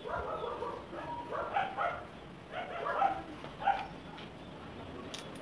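A dog barking, about five short barks spread over the first four seconds, followed by a single sharp click near the end.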